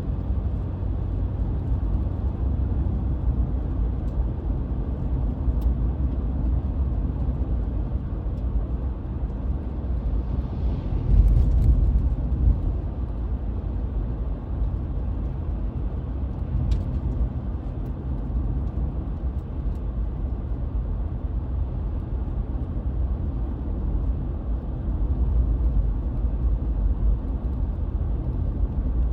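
Steady low road and engine rumble of a car driving on snowy roads, heard from inside the cabin. A brief louder swell comes about eleven seconds in.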